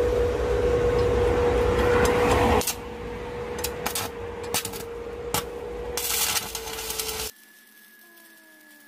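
Welding arc crackling over a steady machine hum, stopping about two and a half seconds in. The hum carries on under a series of sharp metal taps and clinks, then everything cuts off abruptly near the end, leaving a quiet background.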